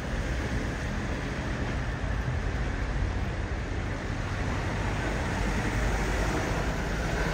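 Steady street noise of road traffic, an even rumble with no distinct single events.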